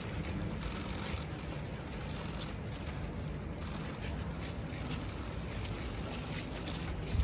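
Wind buffeting the microphone, a steady low rumble, over faint outdoor street ambience with a few light clicks.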